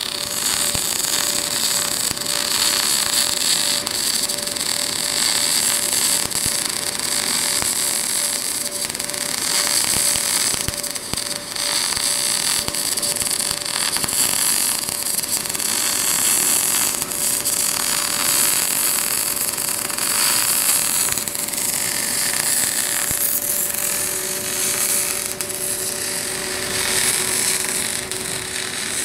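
MAG welding arc on a pipe, welded vertical-up, crackling and hissing steadily throughout.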